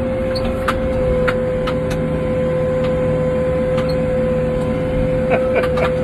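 Backhoe loader's diesel engine running steadily, heard from inside the cab, with a steady high whine over the low drone and a few light clicks.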